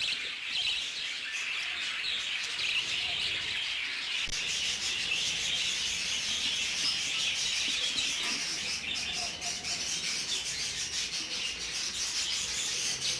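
Budgerigars chattering and chirping continuously, a dense, steady high-pitched twittering of many birds at once.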